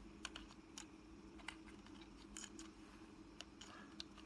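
Faint scattered clicks and ticks of fingers handling wires and small antenna connectors inside an opened plastic drone remote controller, over a low steady hum.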